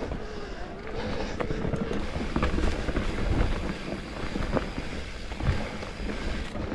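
Specialized Turbo Levo electric mountain bike riding a dirt trail: a steady rumble of tyres and wind on the microphone, broken by many sharp knocks and rattles as the bike hits bumps.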